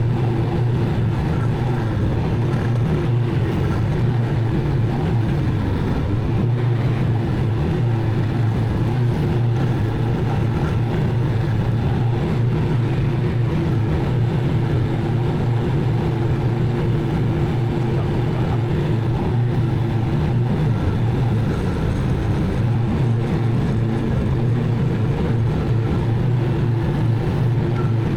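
Zero-turn mower engine running steadily at working speed: a constant low drone.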